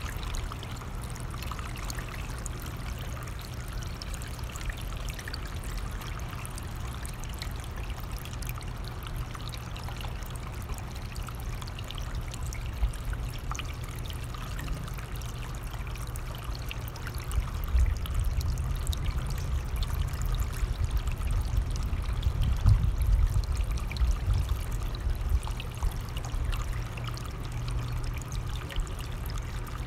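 Running stream flowing steadily, with a low rumble of wind swelling in the second half.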